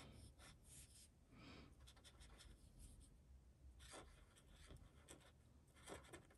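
Faint scratching of a dual-tip calligraphy marker drawing short strokes on paper, in several brief bursts.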